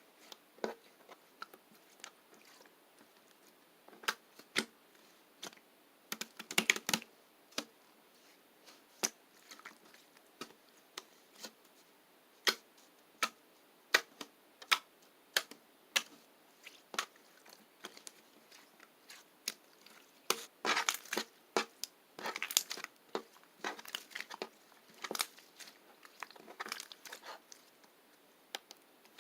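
Slime being pressed and squeezed by hand, giving irregular sharp clicks and small pops, with busier flurries about a quarter of the way in and again about two-thirds through.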